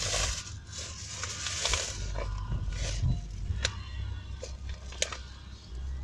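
Handling noise: a plastic drink bottle and the phone being gripped and moved, with scraping rustles and several sharp clicks, over a steady low car-cabin rumble and faint music.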